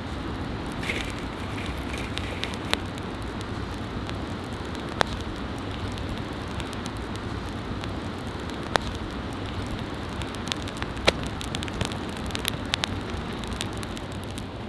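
Split firewood burning, crackling and popping in sharp single snaps over a steady low rush, with the pops coming more often near the end.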